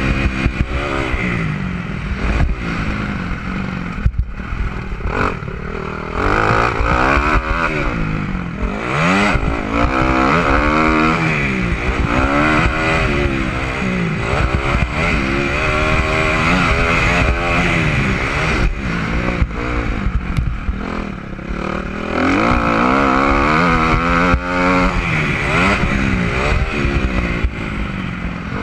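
Dirt bike engine heard from the rider's helmet camera, revving up and dropping back over and over as the bike accelerates, shifts and slows through the track, with wind rushing over the microphone.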